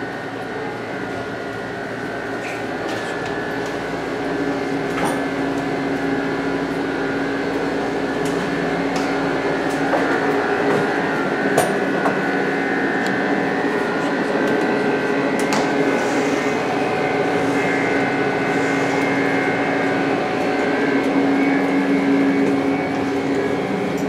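Steady mechanical hum with several held tones over an even rushing noise, getting a little louder over the first few seconds, with a few faint clicks.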